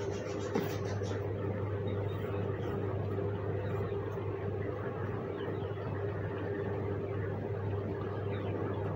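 A steady low mechanical hum, with a hand rustling and stirring dry straw and lumps of dried dung in a cardboard box.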